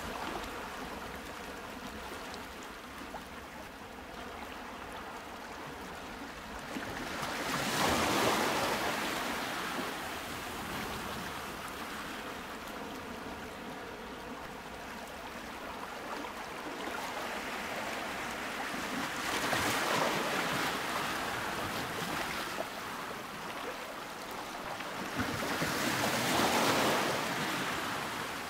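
Ocean waves washing in, a steady surf that swells louder three times: about eight seconds in, about twenty seconds in, and again near the end.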